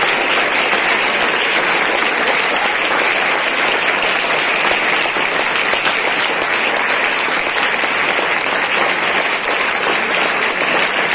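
A crowd of people clapping steadily, an unbroken spell of applause.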